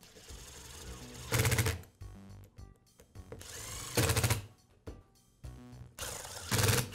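Cordless impact driver driving screws, three short runs, each ending in a brief loud rattle of impacts as the screw seats.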